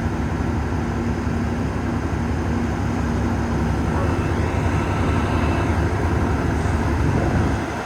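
Large diesel engine running steadily, a low rumble with a constant hum.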